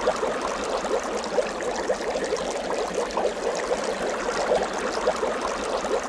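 Water bubbling and trickling: a steady stream of small, quick rising blips.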